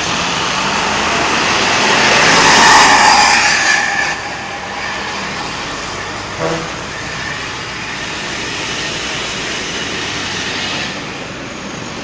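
A heavy road vehicle passing close on a highway: engine and tyre noise swells to a peak about three seconds in and then fades back into steady traffic noise. A brief pitched toot comes about halfway through.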